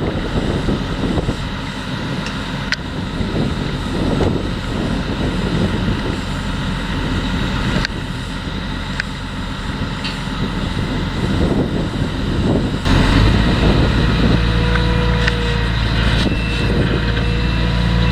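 Potato harvesting machinery, tractor and harvester engines, running steadily with a few light knocks. About two-thirds of the way through, a louder, deeper engine sound cuts in with a steady hum and a faint whine that rises slightly near the end.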